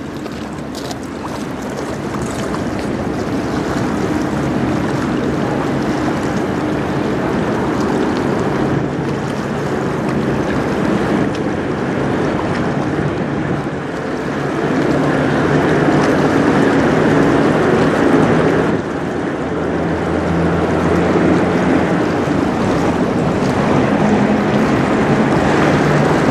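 The lake freighter Cuyahoga passing close by: a low steady drone from the ship's diesel engine, with water washing along the hull and wind on the microphone. It grows louder as the ship draws abreast, about halfway through.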